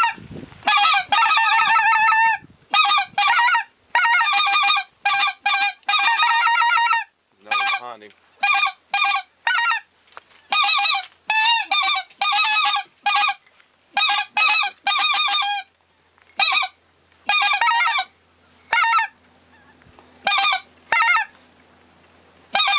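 Handheld goose calls blown to lure geese, sounding quick strings of honks and clucks with short pauses. The strings are dense in the first half and become shorter, more separate notes later.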